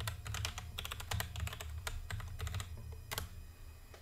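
Computer keyboard typing: a quick run of keystrokes for a shell command, stopping after nearly three seconds, then one last single key press, the Enter key, about three seconds in.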